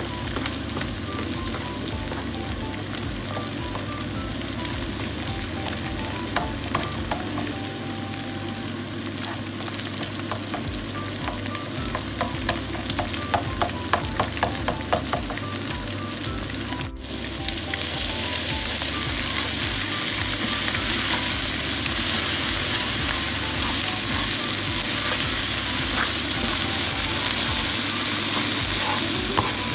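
Eggs and vegetables frying in oil on a flat black pan, sizzling steadily, while a slotted spatula scrapes and clicks against the pan breaking up the eggs. The clicking comes thick and fast around the middle, and a little past halfway the sizzle jumps suddenly louder and hissier.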